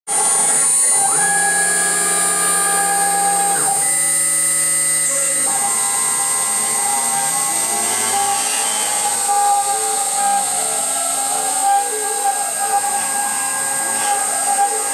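Hobby CNC mill milling carbon-fibre sheet: the spindle gives a steady high whine while the axis stepper motors sing in held pitches that step to new notes, then in pitches that glide up and down and cross each other as the machine cuts a circular hole.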